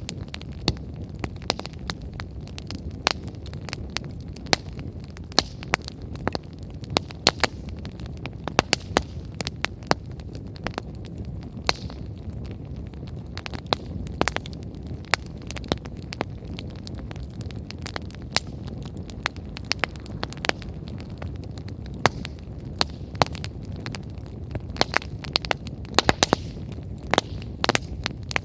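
Wood bonfire crackling, with many sharp, irregular pops from the burning firewood over a steady low rumble.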